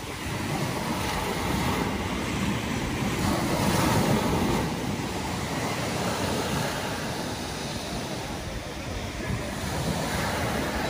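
Small sea waves breaking on a pebble beach and washing up over the shingle, a steady surf that swells loudest about four seconds in.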